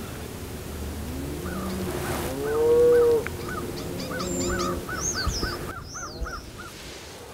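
Wild birds calling: a run of short, evenly repeated calls, about three a second, with one louder, lower call about three seconds in and a few higher swooping notes near the end.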